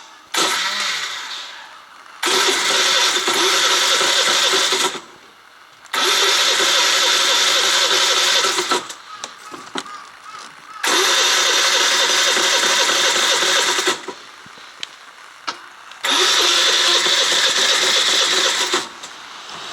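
Suzuki Let's 4 Palette scooter's 50 cc four-stroke engine run up in four loud bursts of about three seconds each, dropping back between them. It runs with a harsh mechanical rattle and grinding from a broken crankshaft bearing.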